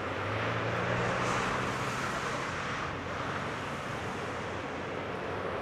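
Boeing 787-8's twin GEnx-1B turbofans at takeoff thrust as the airliner climbs away: a steady jet roar that eases slightly after about three seconds.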